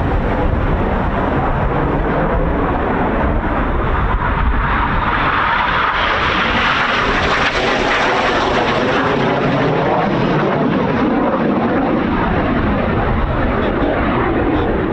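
Red Arrows BAE Hawk T1 jet engine noise as the jets pass, building to its loudest and brightest roar about halfway through and then easing off. Wind rumbles on the microphone underneath.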